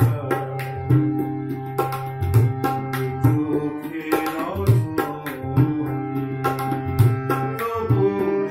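Tabla and harmonium playing together: the harmonium's reeds hold sustained notes while the tabla keeps a steady rhythm of sharp treble strokes and long-ringing bass strokes from the bayan.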